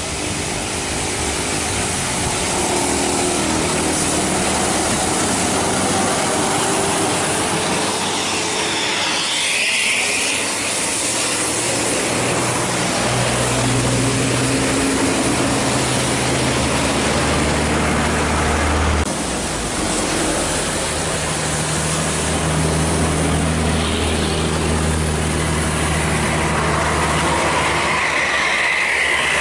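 Diesel engines of big intercity coaches pulling hard as the buses pass close on a wet road, their low engine note swelling and holding through the middle and latter part. Beneath it runs a constant hiss of tyres on wet tarmac and rain.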